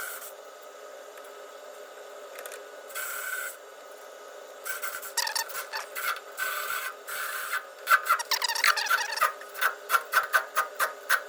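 Hand tools working metal pulley hardware: rubbing and scraping sounds, then a run of sharp metallic clicks about two to three a second from about eight seconds in.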